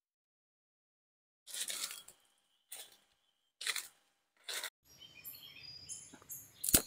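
Footsteps rustling through dry forest leaf litter, four steps about a second apart, then birds chirping with a single sharp crack near the end as a dry twig is snapped for kindling.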